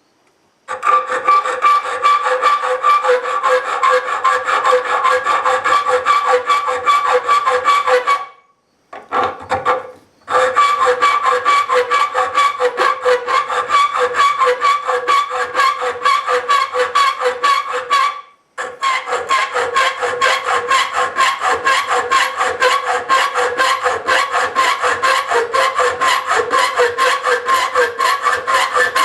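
Hand file rasping back and forth on a wrought-iron piece in quick, even strokes, the metal giving off a steady high-pitched ring. The filing pauses briefly about 8 seconds in and again about 18 seconds in.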